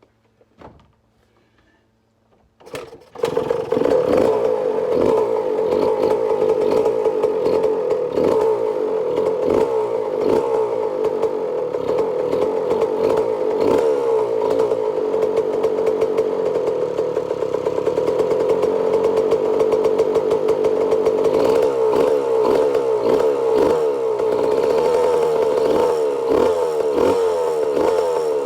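Freshly rebuilt 2006 Yamaha YZ125 two-stroke single-cylinder engine starting about three seconds in and then running, its revs rising and falling.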